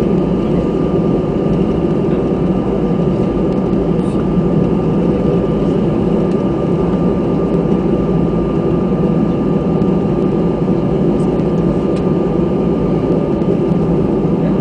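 Airbus A319 jet engines running steadily at low power, heard from inside the cabin: a constant rumble with a thin steady whine over it.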